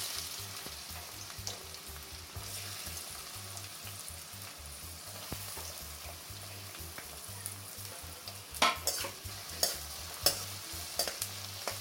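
Chopped onion sizzling in hot coconut oil in a kadai, a steady frying hiss. From about eight and a half seconds in, a spatula clicks and scrapes against the pan as the onion is stirred.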